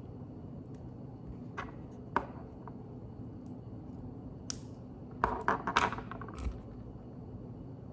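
Plastic Lego pieces being handled during building: a few single clicks, then a quick cluster of clicking and rattling near the end.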